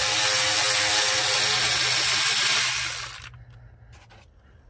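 Cordless electric ratchet running, spinning out a 10 mm intake-manifold bolt with a steady motor whine. It stops about three seconds in, followed by a few faint clicks.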